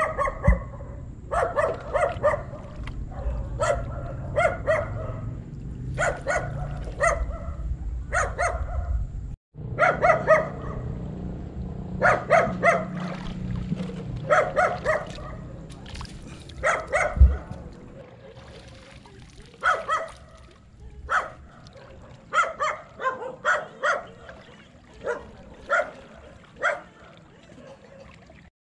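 A dog barking again and again in short runs of barks, with a dull thump about two-thirds of the way through.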